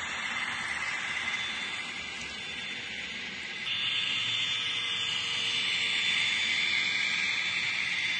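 N-scale model train running along the track, its locomotive motors and wheels making a steady high-pitched hiss that steps up in level about three and a half seconds in.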